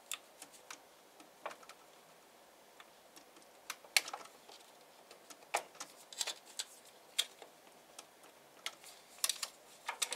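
Hand scraper blade working at a printed raft stuck to blue painter's tape on an aluminium 3D-printer bed: irregular sharp clicks and short scrapes as the blade catches and slips.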